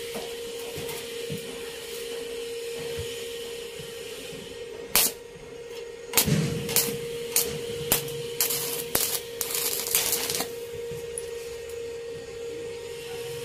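Stick-welding arc from a Daiden 300 A inverter welder running a 2.5 mm E6013 rod at 90 amps. The arc is struck several times in short strikes from about five to about ten seconds in, the last burning for about a second, to tack thin tubular steel.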